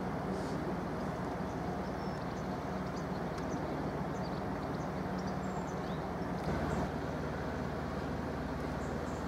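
Steady low mechanical rumble with a hum in it, its deepest hum growing stronger about two-thirds of the way through, and a few faint, short, high chirps.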